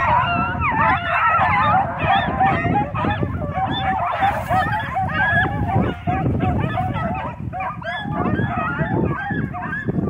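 A large pack of puppies baying and yipping together, many voices overlapping without a break: the pack running a rabbit's trail.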